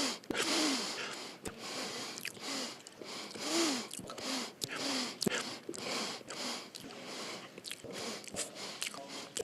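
A man's sniffs through the nose, spliced one after another into a fast run of well over a dozen, two or three a second, with a few short voiced grunts between them.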